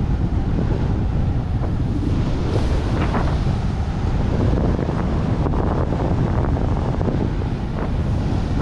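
Wind buffeting a body-worn camera's microphone as the rider descends a snowy ski run, a steady low roar, with brief hissing scrapes of snow under the rider's skis or board scattered through it.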